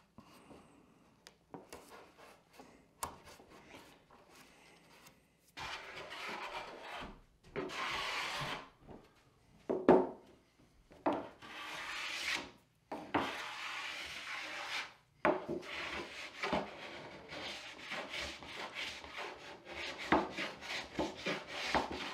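A hand tool worked along the edge of a wooden tabletop, scraping and rubbing in repeated strokes of a second or two each, which become shorter and quicker near the end. Before that, for the first few seconds, there are only light rustles and clicks as tape is handled on the wood edge.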